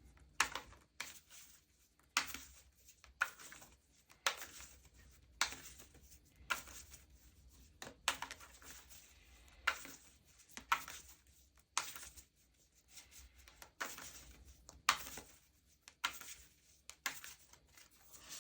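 A tarot deck being shuffled by hand: the cards swish and slap together in short bursts about once a second.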